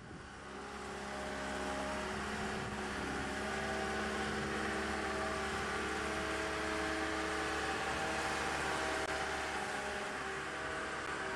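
Engine of a travel lift (mobile boat hoist) running steadily as the lift drives across the yard, a constant hum of several steady tones that swells over the first couple of seconds and then holds.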